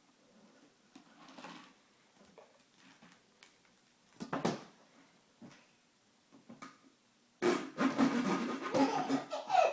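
Plastic drinking straw being played with, making short scattered rubbing and squeaking noises, one brief louder one about four seconds in, then a loud, longer noisy stretch from about seven seconds in.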